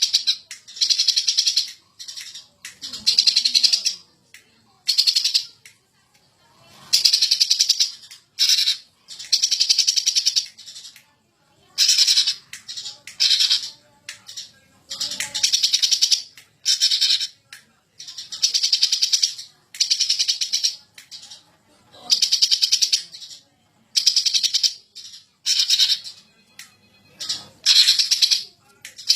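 Cucak ijo (greater green leafbird) singing hard in the rapid 'ngentrok' style: a long run of loud, high, fast-trilled phrases, each about half a second to a second and a half, separated by short pauses.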